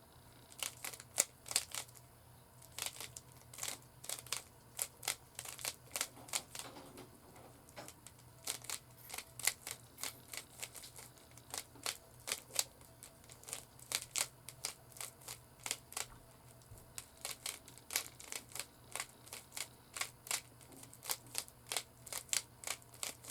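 Rubik's Cube layers being turned by hand: a long, irregular run of quick plastic clicks and clacks, several a second with brief pauses between bursts of moves.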